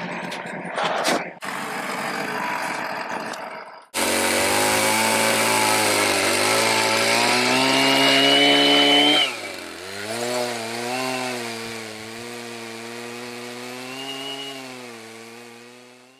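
A vehicle engine running for the first few seconds, then a two-stroke chainsaw cutting through a large chestnut log. The saw runs high under load, its pitch drops sharply about nine seconds in, and it runs on at lower, wavering revs, fading near the end.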